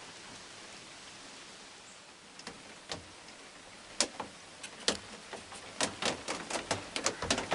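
Rain falling: a steady hiss with separate drops ticking sharply on the wooden deer blind, coming more and more often from about halfway through.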